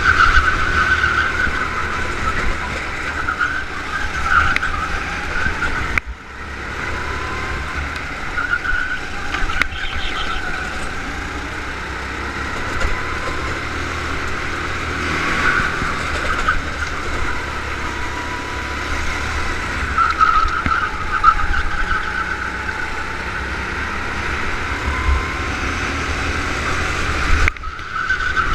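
Go-kart engine heard from the kart's onboard camera through a lap, its note rising and falling through the corners, over a heavy low rumble. The sound dips briefly about six seconds in and again near the end.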